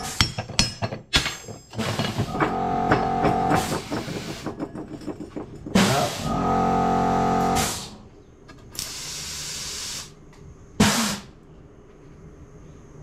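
Knocks and clanks of a fridge compressor's steel shell and tools being handled on a metal workbench for the first couple of seconds. Then several bursts of hissing air, the longest about a second, with a steady machine hum that starts and stops between them.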